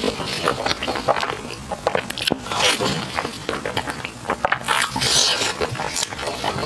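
Close-miked wet chewing and lip-smacking mouth sounds from eating soft, sticky glutinous rice food, with many quick clicks in an uneven rhythm.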